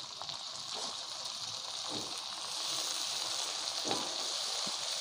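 Onions, green chillies and dried anchovy powder sizzling in hot oil in a metal wok as a wooden spatula stirs them: a steady frying hiss that swells a little about halfway through, with a couple of light spatula knocks.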